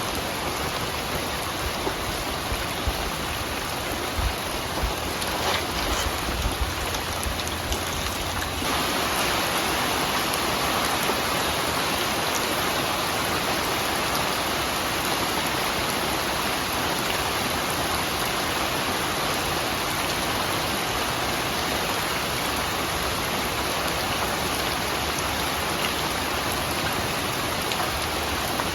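Rain falling steadily, an even hiss, with scattered heavier drops landing in the first few seconds. About eight seconds in it turns abruptly to a slightly louder, denser downpour.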